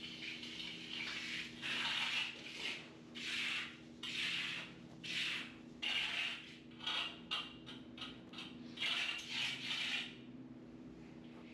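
Hand trowel scraping over a freshly poured concrete patch in the floor: about a dozen swishing strokes, longer at first, then several quick short ones, stopping about ten seconds in. A steady low hum runs underneath.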